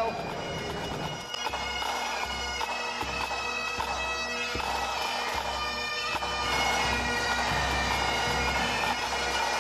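Great Highland bagpipes, several sets, playing a tune on their chanters over the steady hum of their drones.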